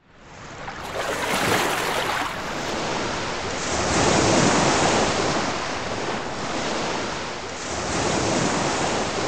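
Ocean waves washing in, a rushing sound that fades in and swells and eases about three times.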